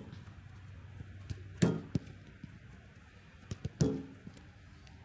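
A football kicked and striking the rebound boards of a passing wall: two loud thuds about two seconds apart, each with a short ringing from the board, and a few lighter taps of ball and feet between them.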